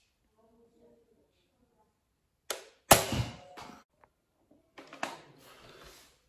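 A Nerf dart blaster firing: a small click, then a sharp snap with a deep thump and a short clattering tail, about three seconds in. About two seconds later comes a quieter clatter of plastic clicks.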